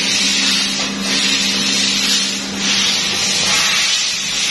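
Loud steady hiss of running workshop machinery, swelling and easing every couple of seconds, over a low hum that fades out about two and a half seconds in.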